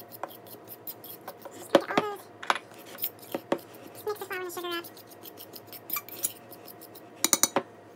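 Metal fork stirring dry flour mixture in a glass mixing bowl: scraping and clinking against the bowl, with a few short squeaks, and a quick run of sharp taps near the end.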